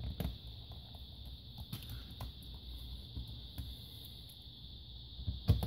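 Small clicks and taps of a screwdriver and tiny screws being handled over a laptop's plastic bottom case during reassembly, with a louder knock near the end. A steady high-pitched hiss runs underneath.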